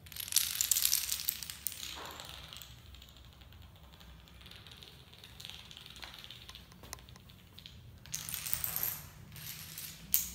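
A chain of dominoes toppling onto a hard tiled floor, a fast run of small clicks that clatters loudly at first, thins out, and swells again about eight seconds in, ending with a single sharp knock.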